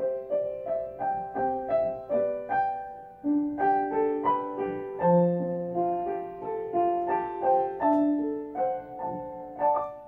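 Background music: a gentle piano melody of single struck notes, about two or three a second, each ringing and dying away, with a last note struck near the end.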